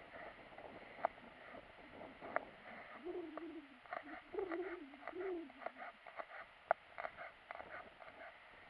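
Knife slicing a garlic clove, giving scattered sharp clicks. Over this, a dove coos in low wavering phrases from about three seconds in to nearly six seconds.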